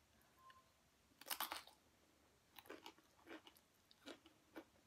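A person chewing food close to the microphone: a cluster of crisp crunching clicks about a second in, then softer chews at a steady rhythm of roughly two a second.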